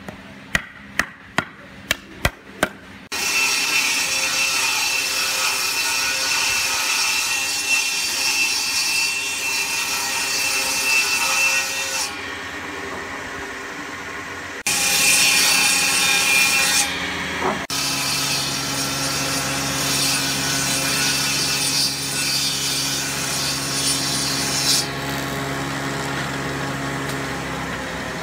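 A wood chisel struck six times in quick succession, cutting into a board. Then a woodworking jointer-planer runs loudly, its cutter head shaving wood in several passes that start and stop.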